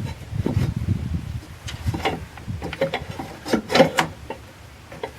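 Hand-tool work on a truck engine: rubbing and scraping for the first second or so, then a run of sharp clicks and knocks, the loudest nearly four seconds in.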